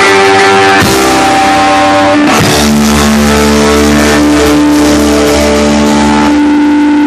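Loud live rock band: electric guitars and bass holding sustained chords, changing chord about one second in and again about two and a half seconds in, then ringing out on one long held chord over the bass.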